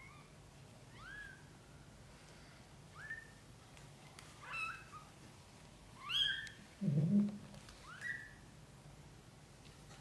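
Newborn kitten mewing: thin, high squeaks that rise in pitch, about half a dozen of them one every second and a half or so. A louder, lower short sound comes about seven seconds in.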